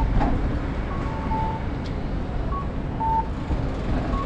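Low wind rumble on the microphone and street noise from riding a bicycle through city streets. Several short electronic beeps at two slightly different pitches sound through it.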